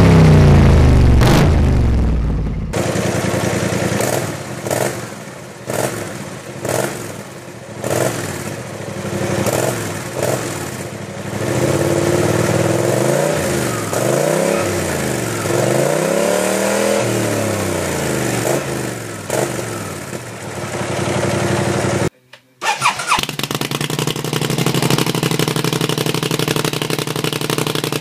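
BMW C 650 scooter's parallel-twin engine revved through aftermarket exhausts: first a GPR silencer falling back from a loud rev, then an IXIL silencer with a series of throttle blips, each rising and falling in pitch. After a brief dropout about 22 seconds in, a different slip-on silencer with the engine running steadily.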